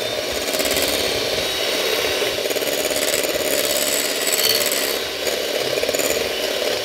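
Electric hand mixer running steadily, its beaters whisking butter in a bowl.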